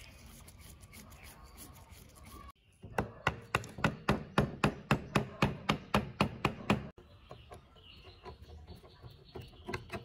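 A small hammer tapping on an old electric wood planer's metal body: a steady run of sharp blows, about four a second, lasting around four seconds from a few seconds in.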